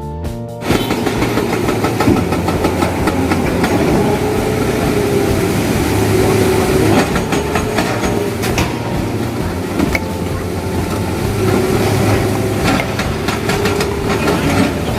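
Excavator-mounted hydraulic breaker hammering rock in a rapid clatter over the running diesel engine, starting abruptly less than a second in.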